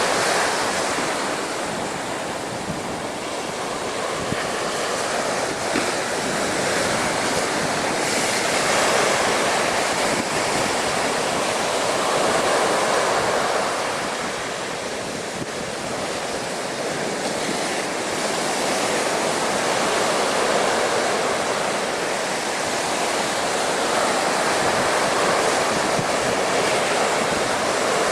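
Storm-driven waves of Chesapeake Bay washing and breaking against a sea wall at high tide: a continuous rushing surge that swells and eases every few seconds, with wind on the microphone.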